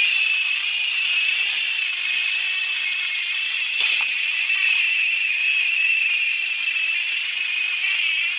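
Small electric motors and plastic gears of battery-powered toy train engines whirring steadily at a constant high pitch, with one light clack about four seconds in.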